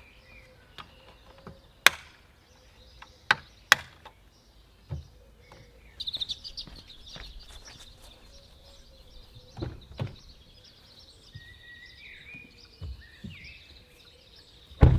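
Birds chirping in the background, with a few sharp clicks or knocks in the first few seconds and a faint steady hum.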